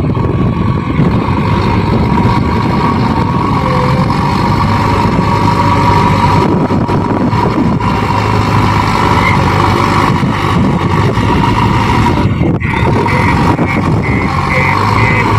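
Diesel engine of a JCB backhoe loader running steadily while it works. A high beep repeats about twice a second near the end.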